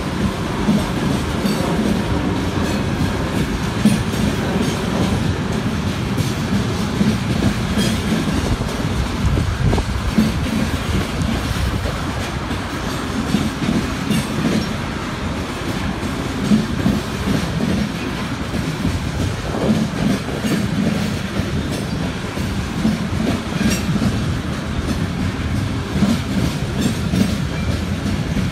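Freight train of coal cars rolling past: a steady rumble of steel wheels on rail with the clickety-clack of wheels over rail joints.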